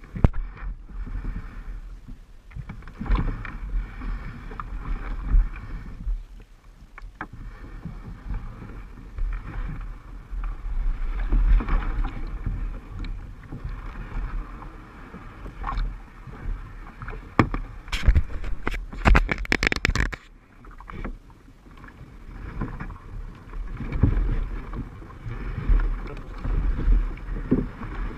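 Kayak being paddled: irregular swells of water splashing from the paddle and hull over a low rumble. A quick run of sharp clicks or knocks comes about eighteen seconds in.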